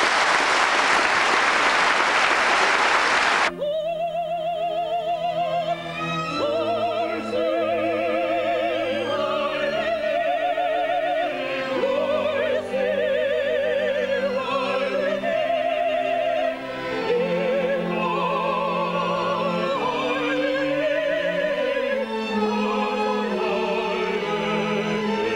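Audience applause that cuts off suddenly about three and a half seconds in, followed by a small mixed vocal ensemble singing a classical piece, with a woman's voice in strong vibrato over long held lower notes.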